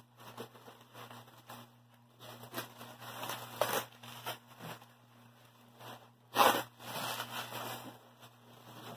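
Blue plastic bubble wrap being crinkled, torn and pulled off a resin bust, in uneven rustling bursts. The loudest is a sharp rip about six and a half seconds in.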